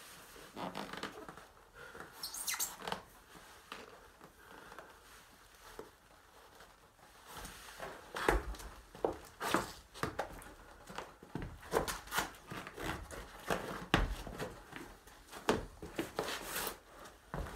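A kitchen knife scraping and sawing at a sneaker's rubber sole, then feet stamping and scuffing on the cut-up shoe and a hard floor, with a run of sharp thumps from about halfway through.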